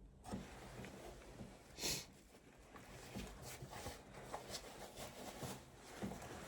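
Faint handling and rustling noises at close range, with scattered small clicks and a short hissing sniff or breath about two seconds in.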